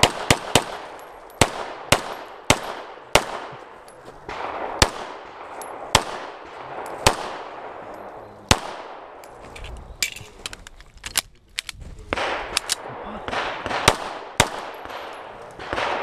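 STI Trojan 1911-style pistol fired in a fast string of doubles and singles, each shot trailing off in echo. About ten seconds in there is a short gap with a few lighter clicks, then another run of shots.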